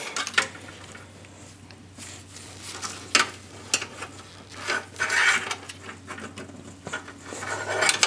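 Handling noise from a desktop computer's power-supply cables: the bundled leads rustle and scrape against the metal case while a power plug is pushed onto the hard drive, with scattered light clicks of plastic connectors. The sharpest clicks come about three and five seconds in.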